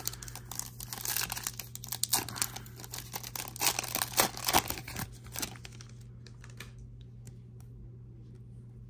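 Foil Panini Prizm football card pack wrapper crinkling and tearing as it is opened by hand: a dense crackle for about five and a half seconds, then only a few faint scattered ticks.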